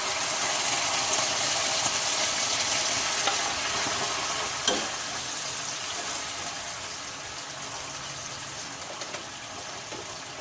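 Food sizzling in hot oil in a kawali (a sauté of garlic, onion and chili) as more ingredients go into the pan. The sizzle slowly quietens, and there is one sharp clack about halfway through.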